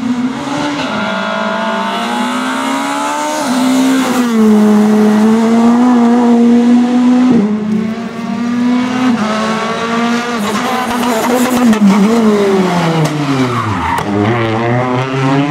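Rally car engine running at high revs under hard driving. Near the end the pitch falls steeply, then climbs again as the engine picks up.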